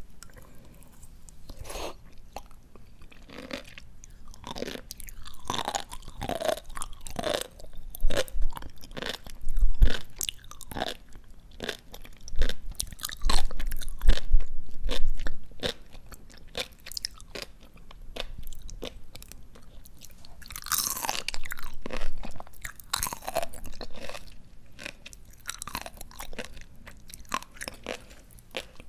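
Close-miked chewing of crisp, juicy raw greens: a steady run of wet crunches and small pops. The heaviest crunches come about a third and a half of the way through.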